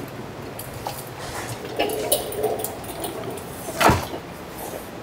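Scattered light clicks and clunks of a car transmission being handled on a transmission jack, with a burst of clatter about two seconds in and one loud knock near four seconds in.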